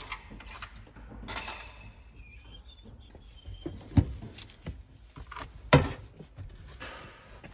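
Hands handling tools over the hybrid battery's metal casing: light rustling, with two sharp knocks about four and about six seconds in.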